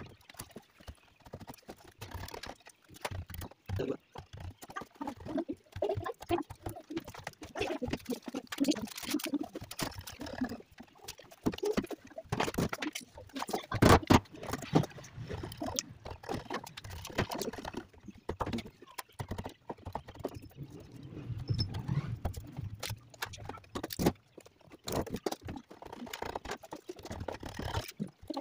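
Irregular taps, knocks and clicks of hand work on a wooden door and its hardware, coming in uneven clusters with short pauses between.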